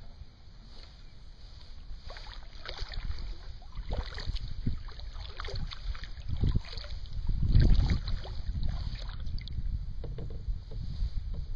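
Kayak paddle strokes: the blades dipping into the water and dripping in short irregular splashes, with wind rumbling on the microphone, loudest about eight seconds in.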